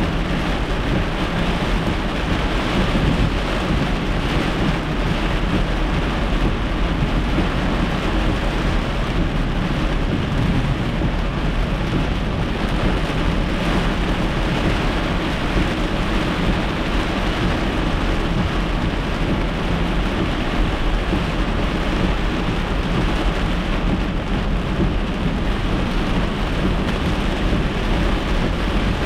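Heavy thunderstorm rain pelting a moving car, heard from inside through a dashcam: a loud, steady hiss of rain with the low rumble of tyres on the flooded road beneath it.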